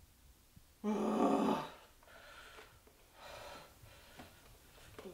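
A brief, wordless vocal sound about a second in, held on one pitch, followed by two faint breaths.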